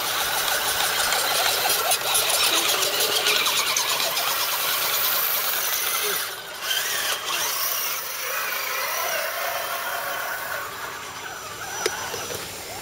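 Electric motors and gear drives of radio-controlled scale crawler trucks whining, the pitch wavering up and down with the throttle as they crawl over the trail; the sound drops briefly about six seconds in.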